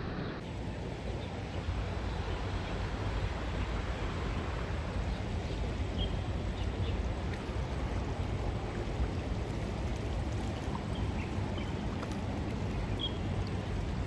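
Steady rush of a swollen, fast-running creek, with a few faint high chirps now and then.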